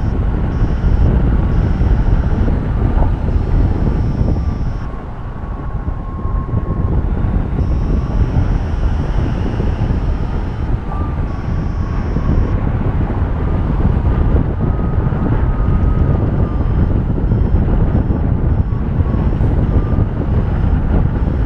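Airflow buffeting the on-board camera's microphone during paraglider flight, a loud, steady rush that eases briefly about five seconds in. Under it runs a faint repeating electronic beeping that wavers in pitch, typical of a flight variometer signalling climb in a thermal.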